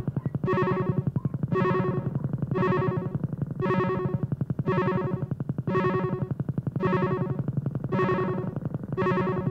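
Lo-fi electronic music from cassette tape: a buzzy synthesizer chord pulsing about once a second in a steady repeating loop.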